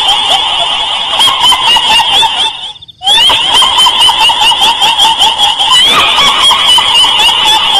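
Dense, continuous chattering of rapid repeated calls at a high and a higher pitch, fading and dropping out briefly about three seconds in before starting again abruptly.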